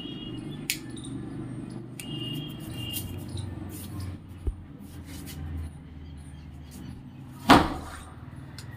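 A sutli bomb (jute-twine-wrapped firecracker) going off with a single loud bang about seven and a half seconds in, after a few small clicks and handling noise.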